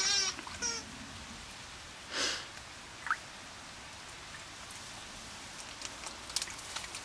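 Basset Fauve de Bretagne puppies paddling in a shallow tray of water. A short high whimper comes at the start, a splash about two seconds in, a brief squeak a second later, and small splashes and drips near the end.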